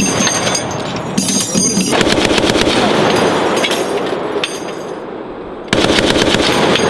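6.8mm M250 machine gun firing full-automatic bursts of rapid shots, fading somewhat around the middle and then starting again suddenly and loudly near the end.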